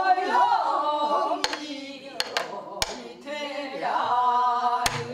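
A woman singing pansori in long, wavering held notes, accompanied by about five sharp stick strokes on a soribuk barrel drum.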